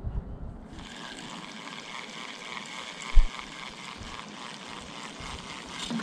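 Spinning reel being cranked: a steady whirring hiss from the reel that starts suddenly under a second in, with one low thump about three seconds in.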